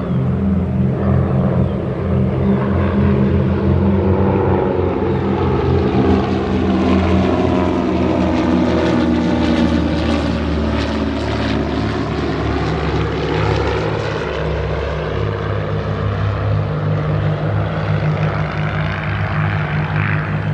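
Propeller-driven airplane flying over, its engine drone swelling to a peak about halfway through as it passes, then easing off.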